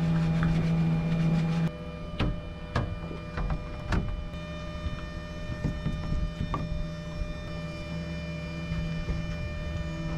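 Steady machine hum with several held tones, louder for the first second and a half, and a few sharp knocks as a windshield glass pane is handled and set on a plywood template.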